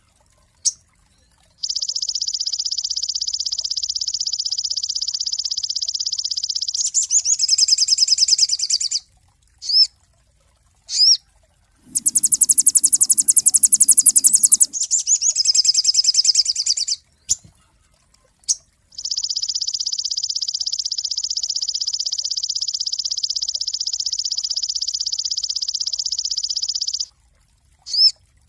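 Sogon bird singing: long, very fast, high trills lasting several seconds, alternating with quicker varied twittering phrases and short single chirps.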